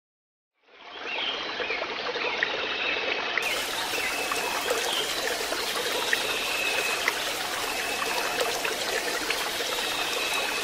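Running water, a steady trickle like a small stream, with faint short high-pitched notes over it; it begins about a second in.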